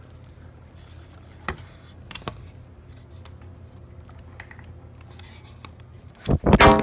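A few light clicks of hand-handled fan parts over a low steady hum. Near the end a mobile phone goes off loudly with a buzz followed by ringtone notes.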